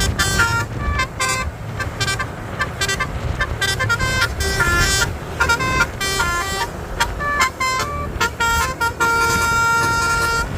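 Bus basuri (telolet) musical air horn playing a quick melody of stepped tones, with short breaks between phrases, over a low rumble.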